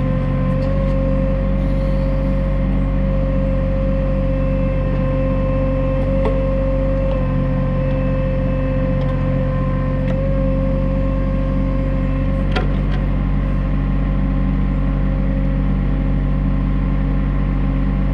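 New Holland TC33D compact tractor's diesel engine running steadily, with a steady high whine over it, as the Woods 7500 backhoe is worked. Two brief knocks come about six and twelve and a half seconds in.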